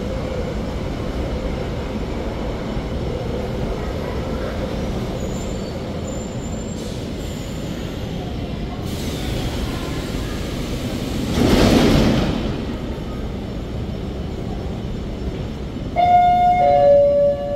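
Bucharest Metro train rolling along the platform and coming to a stop: a steady rumble, with a brief louder surge of noise about two-thirds of the way through. Near the end a two-note falling chime sounds.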